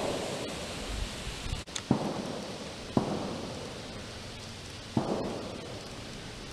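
White-tailed deer walking through dry fallen leaves: a crunching step every second or two, each one dying away quickly.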